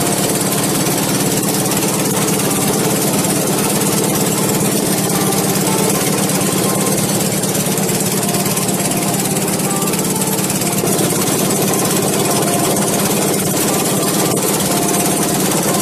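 Small air-cooled inboard engine of a wooden longboat running steadily under way, a loud rapid chugging that drives the propeller shaft.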